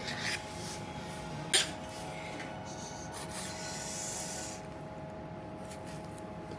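Kitchen knife working kohada (gizzard shad) fillets on a cutting board: soft scraping and rubbing, with one sharp tap about a second and a half in, over a steady faint hum.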